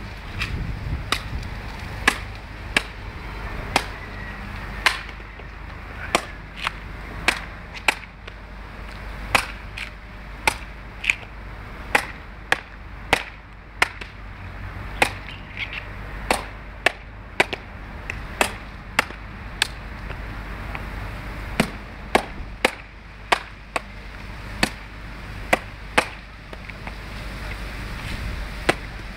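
Machete blade chopping into a young coconut's fibrous husk held in the hand: dozens of sharp strikes at an uneven pace, roughly one every half second to a second, slicing the husk away to open the nut.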